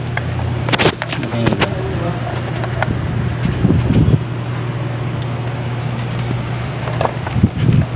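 Steady low machinery hum, with a few sharp metal clicks and knocks, several about a second in and one near the end.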